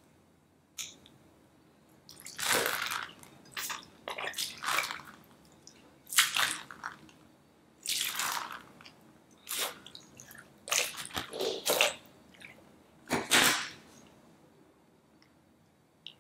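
Water squirting and splashing out of a cut, water-filled, brain-shaped squishy stress ball as it is squeezed over a bowl, in a dozen or so short, irregular splashes that stop about two seconds before the end.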